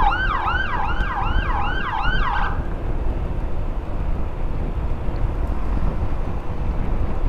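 Electronic siren in a fast yelp, rapid pitch sweeps about three a second, cutting off about two and a half seconds in. After it, steady wind and road noise from a moving motorcycle.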